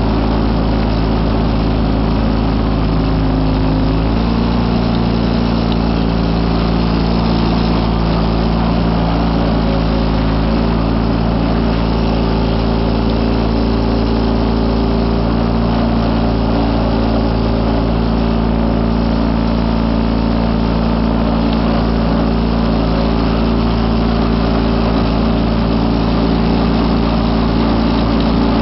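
Kohler KT19 horizontally opposed two-cylinder engine of a Wheel Horse C195 garden tractor running steadily under load, driving a single-stage snow thrower that is throwing snow. The engine note shifts slightly about four seconds in.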